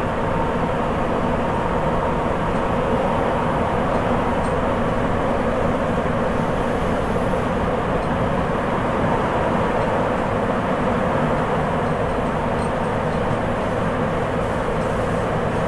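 Sapporo Municipal Subway 8000 series (Toshiba IGBT-VVVF) rubber-tyred train running at steady speed between stations, heard inside the car: an even rumble and road noise with a faint steady tone over it.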